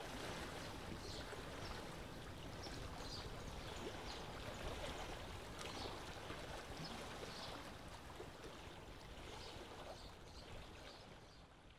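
Faint, steady outdoor ambience like running water, with small scattered high chirps, fading out near the end.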